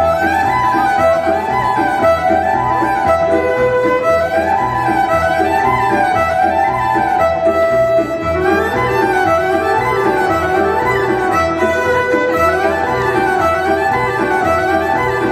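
Instrumental break in a Romanian folk song: a violin plays quick runs of notes that climb and fall, over a keyboard accompaniment with a steady beat.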